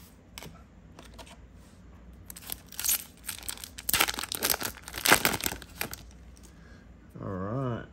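A plastic trading-card booster pack wrapper being torn open and crinkled by hand: a few seconds of sharp crackling that start about two seconds in and are loudest around four to five seconds in.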